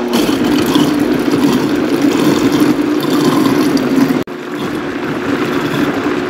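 Countertop blender motor running at a steady speed, pulverizing a jar of hot cooked tomato barbecue-sauce mixture. The steady hum breaks off sharply for an instant about four seconds in, then carries on.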